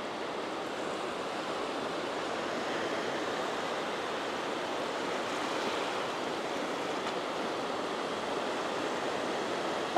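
Surf on a sandy beach: small waves breaking and washing up the shore in a steady rush.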